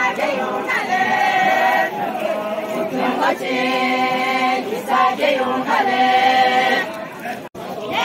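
A group of voices singing a Yimkhiung folk song together, long held notes in short phrases joined by sliding pitch. The sound breaks off for a moment near the end.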